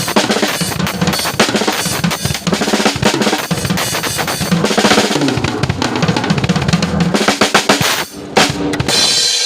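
Drum kit played in a fast, busy pattern of bass drum and snare strokes. It breaks off briefly near the end, then comes one more hit.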